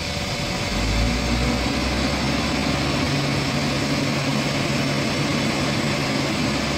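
Truck-mounted crane's engine running under load to drive the crane hydraulics as it lifts a heavy steel frame: a steady drone that grows heavier about a second in, with a steady hum joining at about three seconds.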